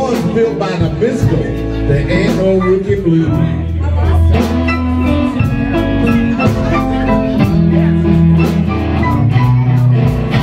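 Live blues band playing: an electric guitar takes a lead with bent notes over bass, drums and keyboard, with a steady beat.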